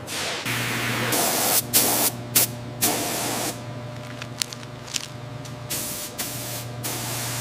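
Handheld spray gun hissing in a string of short bursts, over a steady low hum.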